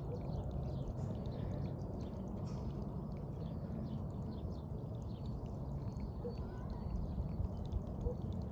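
Water trickling and gurgling through soaked wood mulch: a steady low rush with many small ticks and pops scattered through it.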